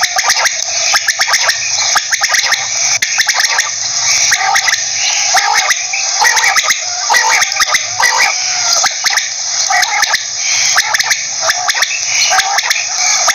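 Quail calling, a rapid run of short repeated notes that goes on with hardly a pause.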